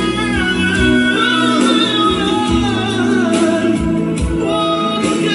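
Background music: a worship song, a voice singing long held notes over instrumental backing.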